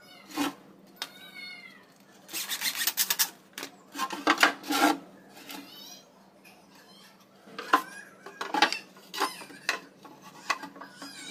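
Plywood panels scraping and knocking together as a slot-jointed plywood box is pulled apart and refitted by hand, with a few short squeaks whose pitch rises and falls near the start.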